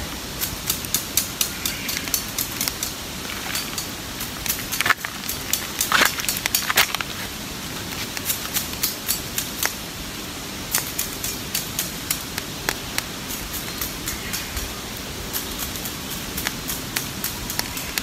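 Campfire of damp wood crackling, irregular sharp pops over a steady hiss, with a few louder snaps about five to seven seconds in.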